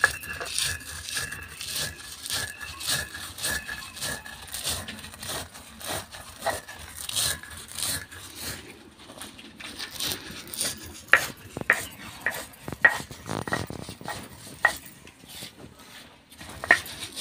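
Stone roller rubbed back and forth over a flat grinding stone (shil-nora), coarsely crushing dry-roasted whole spices and dried red chillies: a rhythmic scraping, about two strokes a second. Sharper clicks and knocks come in the second half.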